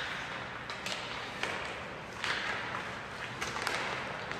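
Ice hockey play: skate blades scraping the ice in short hissing strokes, with several sharp clacks of sticks and puck and a few thuds.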